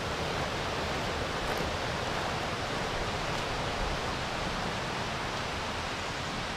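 Steady rushing of a mountain waterfall and stream, an even hiss with no break.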